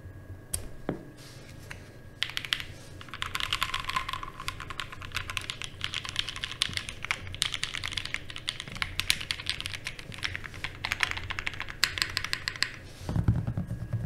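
Typing on an Ozma60, an aluminium top-mount 60% mechanical keyboard. A few lone key clicks come first, then rapid, continuous keystrokes start about two seconds in and run until shortly before the end.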